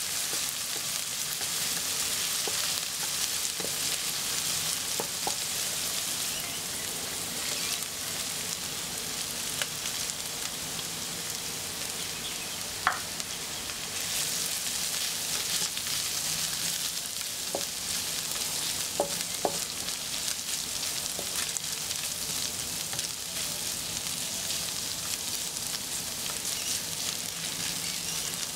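Diced vegetables and shredded chicken sizzling in a hot pan as they are stir-fried, with the spatula scraping through them. Now and then there is a sharp tick of the spatula against the pan, the loudest about halfway through.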